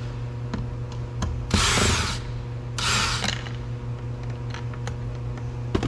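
Cordless drill/driver with a Phillips bit running in two short bursts, backing out a screw from the car door.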